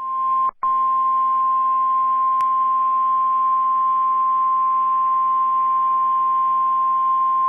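NOAA Weather Radio's 1050 Hz warning alarm tone: one steady, single-pitched tone lasting about seven and a half seconds, broken by a short dropout about half a second in and marked by a single click a little past two seconds, over a faint low hum. It signals that a severe thunderstorm warning is about to be read.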